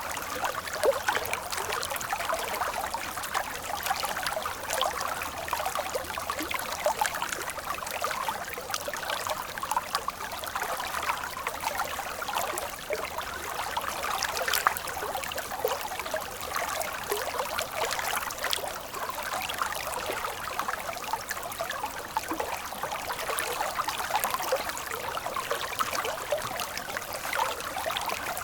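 Stream water flowing steadily, a continuous rush with many small splashes and gurgles.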